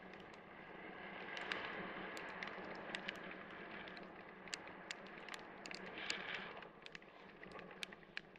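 Wind rushing over the camera during a parachute descent, with scattered sharp ticks of raindrops striking the camera.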